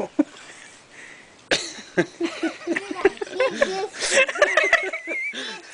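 People chuckling and laughing in short pitched snatches from about a second and a half in, with a high wavering squeal near the end.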